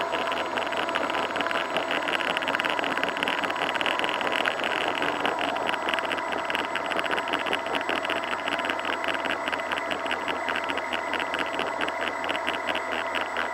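Twin electric motors and propellers of an RC model plane running steadily at one pitch, heard up close from the camera on board, with a fast, even flutter. Right at the end the pitch starts to fall as the motors wind down.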